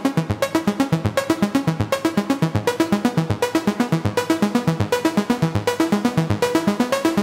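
Electronic hip-hop beat made with a synthesizer and drum machine, running at a quick, even pulse.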